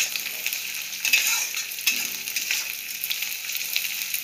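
Chopped onion, green chillies and garlic sizzling in hot oil in a kadhai, with a metal spatula scraping and knocking against the pan as they are stirred and fried. Short clicks from the spatula come several times through a steady sizzle.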